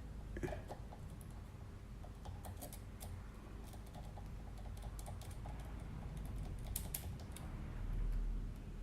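Small irregular metallic clicks and ticks of a pick and tension tool working the pins of a 7-pin tubular lock, a second picking pass after the lock only partly turned. A low rumble near the end.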